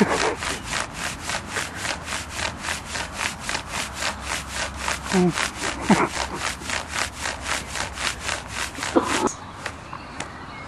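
Hands rubbing quickly up and down over the padded muscle chest of a Batman costume, about four strokes a second, stopping about nine seconds in.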